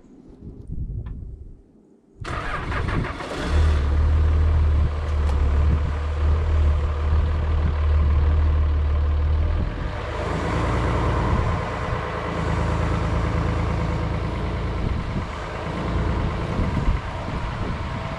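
An engine starts about two seconds in and keeps running, with a steady low hum; its sound shifts about ten seconds in.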